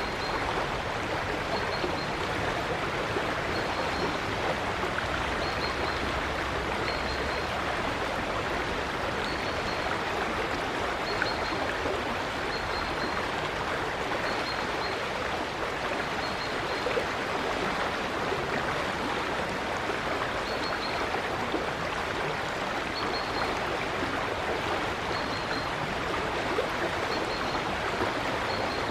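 River water flowing with a steady, even rushing. A small bird gives short, faint high chirps over it, about one every second or two.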